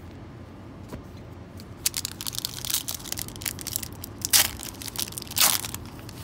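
Foil trading-card pack wrapper crinkling as it is handled, then ripped open in two loud tears about four and five seconds in.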